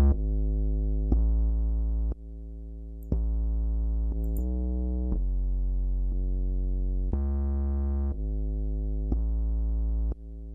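Synth bass sample playing a run of held bass notes, about a second each, through a compressor that is levelling them out. Most notes sit at one even level, but two blocks stay much quieter than the rest, showing dynamics the compression has not yet caught.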